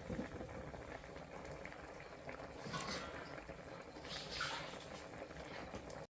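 Liquid bubbling in a cooking pot, with brief hissing swells about three and four seconds in; the sound cuts off suddenly near the end.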